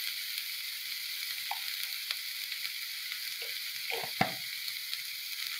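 Shredded cabbage, carrot and capsicum sizzling steadily as they fry in an iron kadhai, with one sharp knock about four seconds in.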